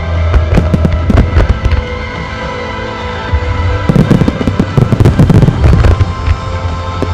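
Fireworks bursting in quick succession with crackling, over music with steady sustained tones. A denser run of deep booms begins about four seconds in.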